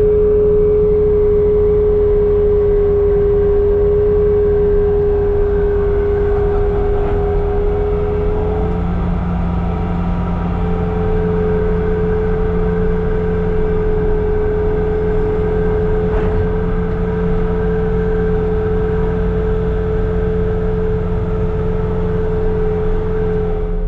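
Bobcat T66 compact track loader running its snow blower attachment: the diesel engine running steadily at working speed with a high, steady whine that drops out briefly about nine seconds in and then comes back.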